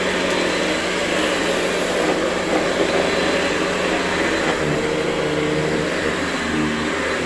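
Hoover Convertible U4345 upright vacuum cleaner running while vacuuming, a steady motor whir whose pitch shifts slightly now and then.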